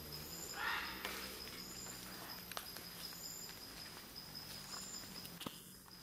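Forest ambience of insects: a steady high-pitched drone with a higher chirp repeating about every second and a half. About a second in there is a brief louder noise, and a few faint clicks are scattered through.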